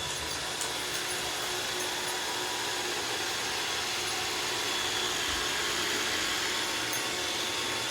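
iRobot Roomba Combo (Y0140) robot vacuum running, a steady whir with a faint high-pitched whine.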